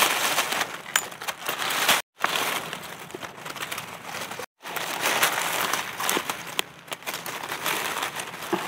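Dry leaf litter crackling and rustling as gloved hands dig through it to pick mushrooms, with scattered sharp crackles of twigs and leaves. The sound drops out to silence twice, briefly.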